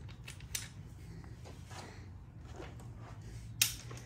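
A few scattered clicks and knocks of a wrench and socket being worked on the oil pan drain plug, with one sharper click near the end.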